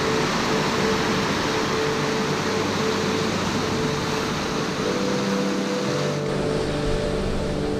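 Sea surf washing over a rocky shoreline, a steady rushing noise, with background music of long held notes laid over it. The notes change about five seconds in, and the surf noise drops a little about six seconds in.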